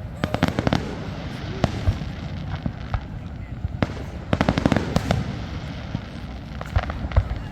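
Fireworks display: aerial shells bursting, with a quick run of crackling pops at the start and a second, denser run of crackles about four and a half seconds in, separate bangs in between, over a continuous low rumble.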